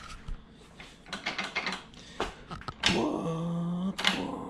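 Light clicks and rustles, then a dog's drawn-out vocal call about three seconds in, followed by a second one near the end.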